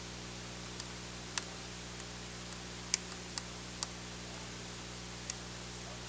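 Screwdriver work on the hinge-cover screws of a Panasonic Toughbook CF-30 laptop: a handful of short, sharp clicks and ticks at uneven intervals, over a steady low electrical hum.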